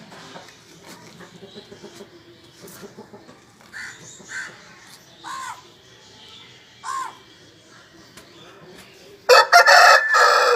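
Aseel chickens making a few short, separate clucking calls, then a loud, harsh outburst lasting about a second near the end.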